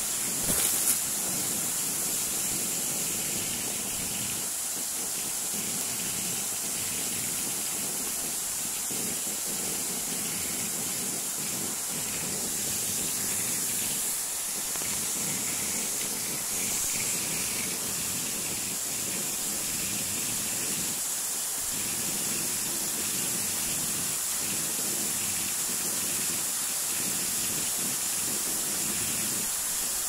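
Steady rush of a small waterfall and its stream cascading over rocks, with a couple of brief knocks in the first second.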